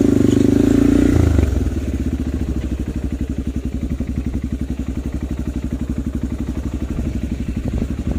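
Motorcycle engine running under throttle for about the first second and a half, then easing off to a lower, steady, evenly pulsing run as the bike rolls along.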